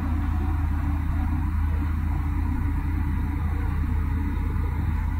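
A steady low hum with an even, faint rumbling noise under it.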